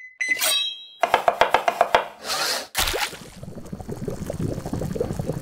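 Animated logo intro of sound effects: a short bright chime, a quick run of knocks lasting about a second, a whoosh, then a sudden hit with a low rumbling tail that fades near the end.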